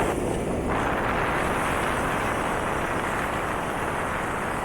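Steady rushing road and wind noise from riding in a moving vehicle.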